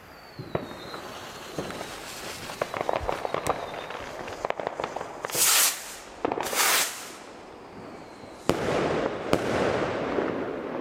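Zink Z1 bouquet firework rocket: a few seconds of crackling from the lit fuse, then two loud rushing hisses about a second apart as it lifts off. Near the end two sharp bangs less than a second apart as the bouquet breaks, each followed by a crackling hiss of burning stars.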